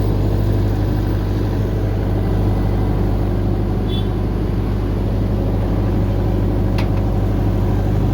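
Denyo 22 kVA diesel generator set running steadily after repair. The engine note is even and smooth, a sign the repair has worked.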